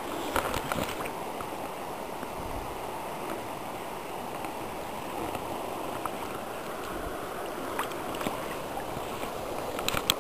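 Shallow river water running steadily, with a few light splashes and knocks about half a second in and again near the end.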